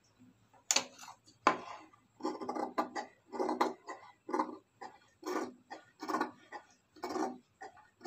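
Large steel tailor's scissors cutting through folded fabric backed with buckram: a run of crunchy snips, roughly one a second. Two sharp clicks come in the first two seconds, as the scissors are handled against the table.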